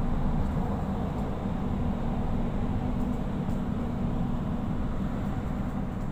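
Steady low rumble of a metro train running, heard from inside the carriage, with a constant hum under it.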